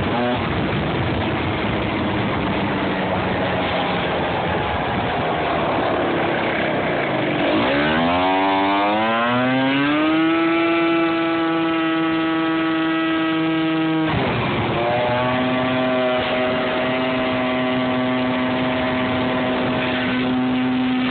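Moped scooter engine running under way, with wind rush over the microphone. Its pitch climbs over a few seconds about a third of the way in and then holds steady, drops suddenly about two-thirds through, and climbs back to hold steady again.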